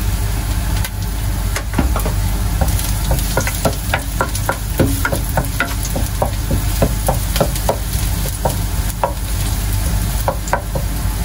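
Chopped garlic sizzling in hot oil in a nonstick pan, being sautéed until golden. A wooden spoon stirs it, with a run of quick scrapes and clicks against the pan starting about two seconds in.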